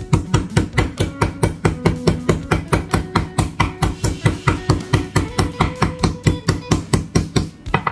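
A meat mallet pounding slices of pork in rapid, even blows, about five a second, flattening and tenderizing the meat so it can be rolled.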